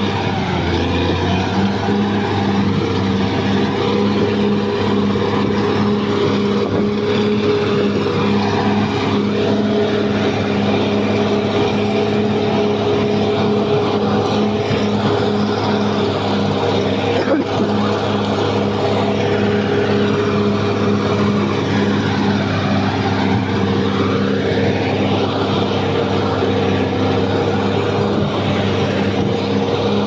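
Caterpillar D6R XL crawler bulldozer running steadily under load as it moves forward, pushing brush and soil with its blade. A higher whine dips and then rises in pitch about two-thirds of the way through.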